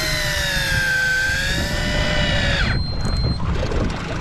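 Fishing reel winding in line under load: a loud whine whose pitch wavers slowly, cutting off sharply about two-thirds of the way through, followed by a brief thin high tone, over a low rumble of wind.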